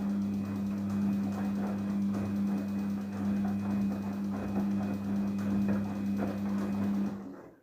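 Daewoo DWD-FT1013 washing machine running a cotton 40°C wash: a steady motor hum under irregular sloshing of water and laundry, which stops abruptly about seven seconds in.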